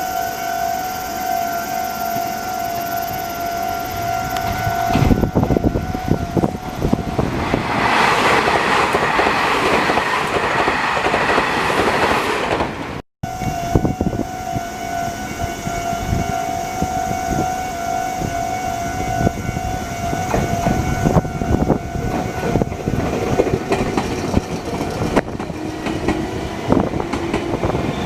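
Japanese level-crossing warning bell ringing steadily while a Meitetsu train passes, its wheels clattering over the rail joints. After a brief break in the sound, the bell rings on and more train running noise follows.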